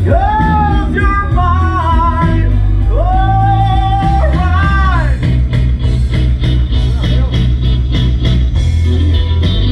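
A live rock-blues band playing, with a singer holding long, bending notes over bass and guitar for about the first five seconds before the instruments carry on alone.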